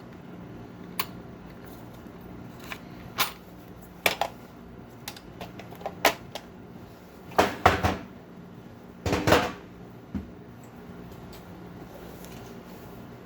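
Hand tools being handled on a workbench: a series of separate clicks and knocks, with two short louder clatters about 7 and 9 seconds in.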